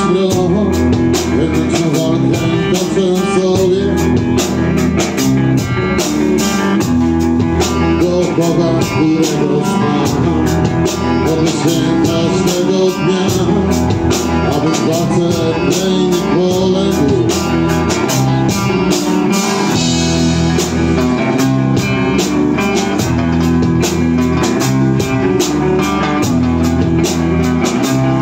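Live rock band playing loud, with electric guitars, bass guitar and a drum kit keeping a steady beat, and a man singing into a microphone.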